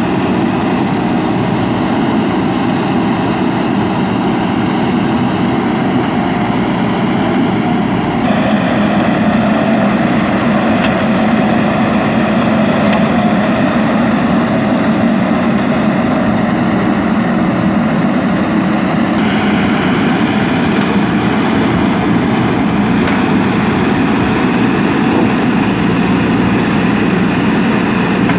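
JCB 3DX backhoe loader's diesel engine running steadily under load while the backhoe digs. It gets a little louder about eight seconds in.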